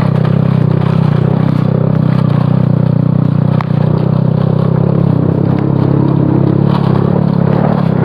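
Motorcycle engine running steadily as the bike climbs a rough, rocky dirt track, with a few faint clicks and knocks from the bumpy ride.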